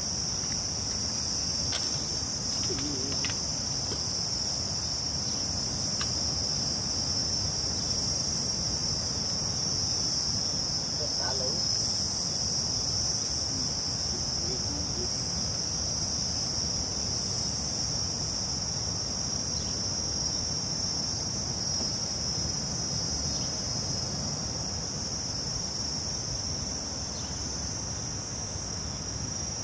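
Steady, high-pitched buzzing chorus of insects, unbroken throughout, with a few faint clicks.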